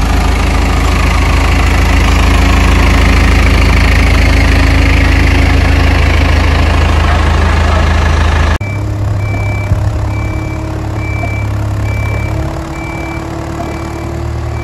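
Heavy engine of the machine hauling the boat trailer, running loud and steady. After a sudden cut about two-thirds of the way in, the engine runs quieter under a short high beep repeating a little more than once a second.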